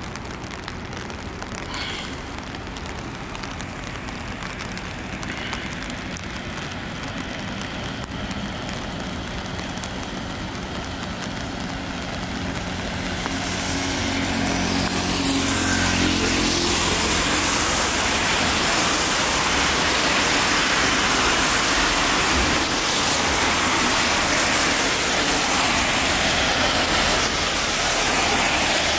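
Road traffic on wet tarmac: a steady hiss of tyres, with a vehicle's engine hum passing a little before halfway. The hiss then grows louder and brighter and stays so.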